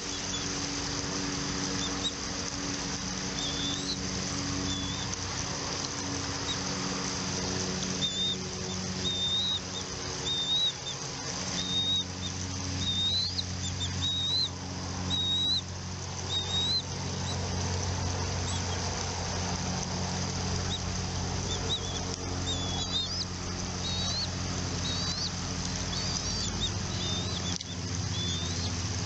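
Bald eagle chirping: runs of short, high-pitched chirps, starting about eight seconds in and again near the end, over a steady low hum.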